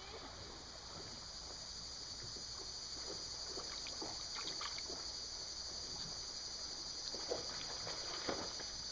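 Creek water running with a steady hiss, with a few faint clicks and knocks scattered through it.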